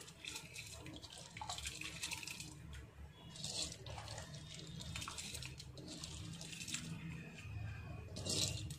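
Dry basmati rice poured off a steel plate into a pot of boiling water: several rushes of grains sliding off the metal and splashing into the water, the last one the loudest.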